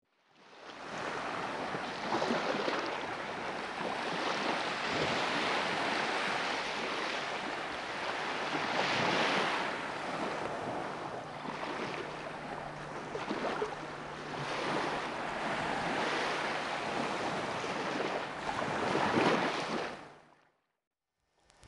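Small waves washing onto a sandy beach: a steady wash that swells louder twice, about nine seconds in and again near the end.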